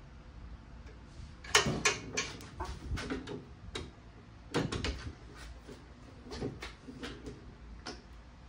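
Irregular metal clanks and taps as a rusty steel pan is handled in a drill-press vise and the wire cup brush is brought down onto it. The loudest knock comes about one and a half seconds in, with smaller clusters of taps after it.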